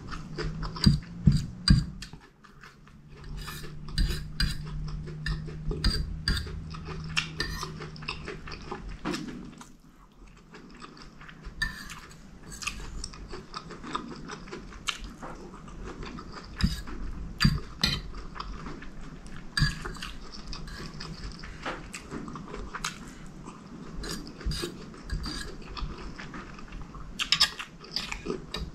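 Close-miked eating: a metal fork and spoon scraping and clinking on a ceramic plate of chicken curry and rice, with wet chewing and mouth sounds between mouthfuls. A low steady hum runs through the first eight seconds or so.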